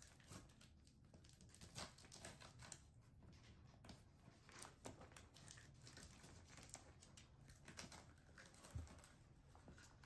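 Faint irregular scratching and small clicks of a toy poodle mouthing the edge of a cardboard box, with a soft low bump near the end.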